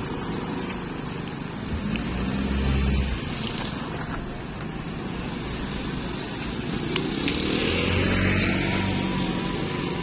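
Motorcycles and a small car passing close by on the road, their engines running; in the second half one engine rises in pitch as it pulls away.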